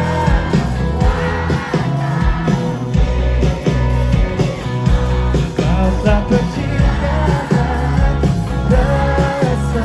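Live pop-rock band playing loud, with a steady drum beat, bass and melodic lines over it.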